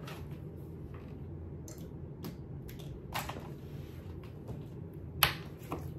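Objects being picked up and moved about while searching for a small kitchen grater: several short clicks and knocks, the sharpest about five seconds in, over a steady low hum.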